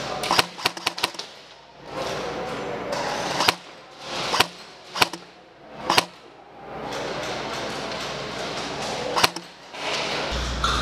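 Airsoft guns firing: a rapid string of about six sharp cracks in the first second, then single cracks spaced a second or so apart, over a steady background din.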